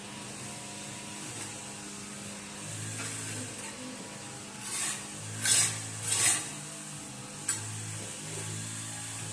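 Three short scraping strokes of a hand tool working the wall surface, about a second apart, over a steady low hum, with a sharp click near the end.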